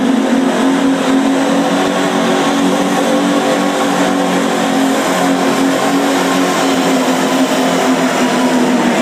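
Competition pulling tractor's engine at full throttle while it drags the weight-transfer sled, a loud steady drone that climbs slightly in pitch at the start and then holds.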